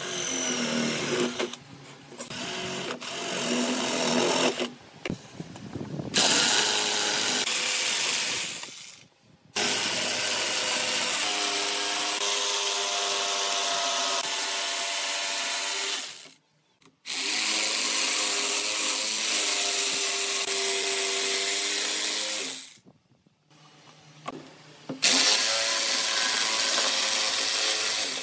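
A cordless drill bores a hole through a wooden board, then an electric jigsaw runs in several long steady bursts as it saws through the board, cutting off abruptly between passes.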